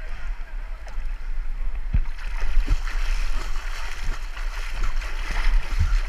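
River water sloshing and splashing against a camera held at the surface, with a constant low rumble and scattered knocks of water on the housing. The rushing splash grows louder about two seconds in.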